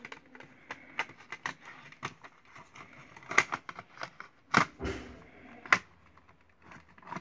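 Plastic clicks and snaps of a Sony Walkman FX-321 cassette player being handled: its cassette door opened and snapped shut on a tape and its top buttons pressed. A run of small clicks, with three louder snaps in the middle.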